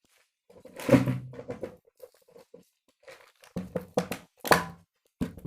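Crinkling and rustling of packaging being handled, in a few short bursts with quiet gaps, the loudest about a second in.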